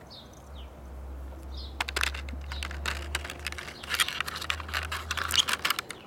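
Clear plastic packaging crackling and clicking as hands handle it and take out the power bank, a dense run of sharp crackles from about two seconds in. A few bird chirps in the first second and a half.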